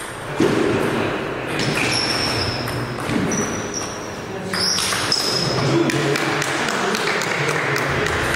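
Table tennis balls clicking off bats and tables in irregular, overlapping strokes from more than one game at once, with a few short high squeaks among them.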